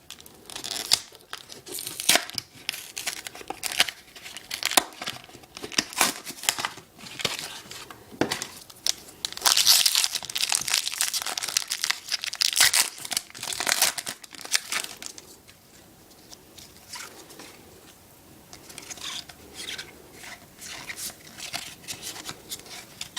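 Foil wrapper of a Pokémon TCG XY booster pack being torn open and crinkled, with sharp crackling throughout. The loudest, most continuous tearing and crinkling comes about ten to fifteen seconds in, then it drops to softer, scattered crinkles.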